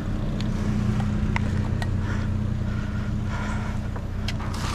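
A vehicle engine idling with a steady low hum, with a few light clicks and rustles of scrap being handled in the dumpster over it.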